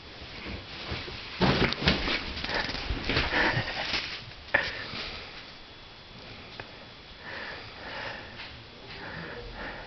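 A man snoring: several loud, rough breaths in the first half, then softer ones at an even pace.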